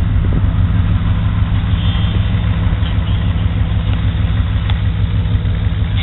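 Late-1950s DeSoto V8 idling steadily, a deep, even exhaust note heard close to the rear of the car.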